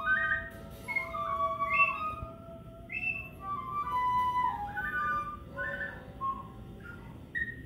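A clay flute playing a slow melody of clear, breathy held notes, with a lower note sustained underneath for the first few seconds.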